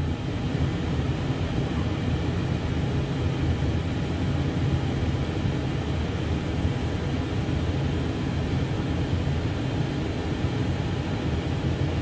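Dometic RV furnace running: its blower fan pushes air out of the vent with a steady low hum and an even rush of air. The furnace is firing again now that its sail switch has been replaced.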